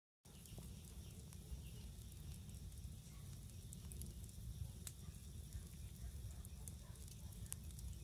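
Wood campfire burning, with a few sharp crackles and pops over a steady low rumble.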